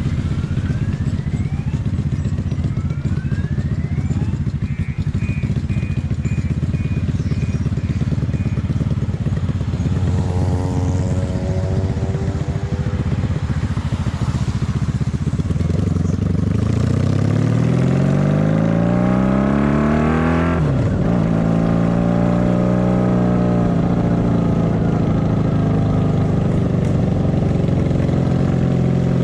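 Honda Magna VF750's V4 engine running under a rider on the move, at first steady, then accelerating with revs climbing from about 16 seconds in; a gear change near 21 seconds drops the pitch suddenly, and the revs then ease off and build again.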